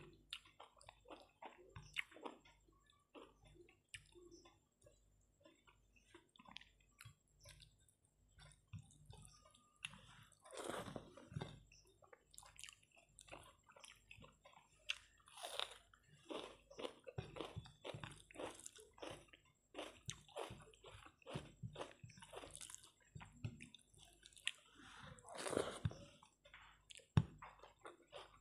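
Close chewing and wet mouth sounds of a person eating rice and curry by hand: many quick, soft, irregular clicks, with a couple of longer, louder mouth sounds about ten seconds in and again near the end.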